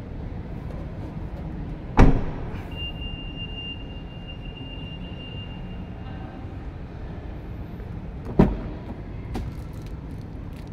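Mitsubishi Xpander's tailgate shutting with a heavy thump about two seconds in, followed by a thin steady high tone lasting about four seconds. A second, smaller car-door thud comes about eight seconds in, with a few light clicks after it.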